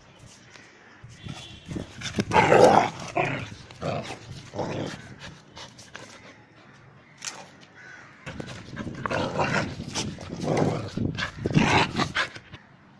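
Dog vocalizing close by in two bouts, one about two seconds in and one from about eight and a half seconds until near the end.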